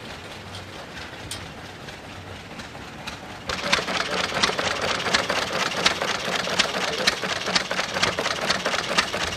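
Old hit-and-miss stationary engine running: a fast clatter of clicks and knocks with sharper firing bangs at irregular intervals. It cuts in suddenly a little over three seconds in, after faint background.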